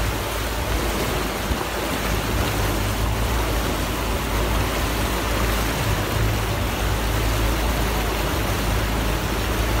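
Motorboat engine running steadily under way, a constant low drone, over the rushing hiss of the boat's wake and water.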